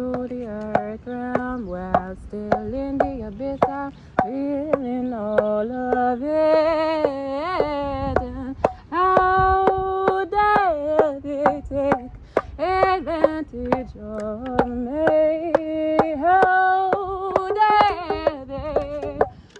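A woman's voice singing a wordless, chant-like melody of held and sliding notes, in the style of light-language channeling. Frequent sharp clicks run through it.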